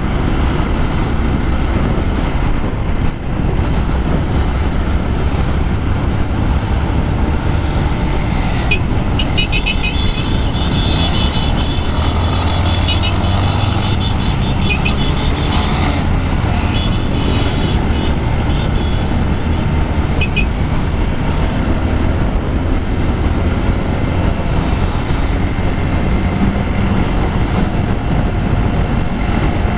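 Yamaha XTZ Crosser's single-cylinder engine running at road speed under heavy wind noise from strong gusts on the microphone, with traffic around. A high-pitched tone sounds on and off for several seconds near the middle.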